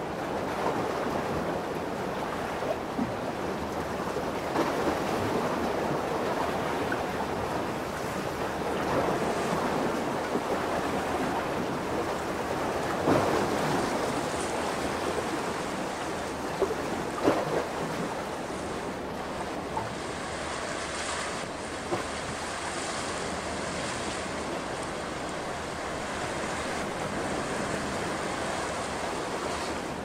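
Lake waves washing in steadily, with a few sharper splashes now and then.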